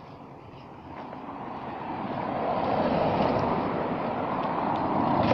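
A motor vehicle approaching on the road, its noise growing louder over the first few seconds and then staying loud.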